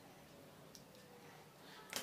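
Fingers working rice on a steel plate: very quiet, with a faint tick about three-quarters of a second in and a sharp click near the end.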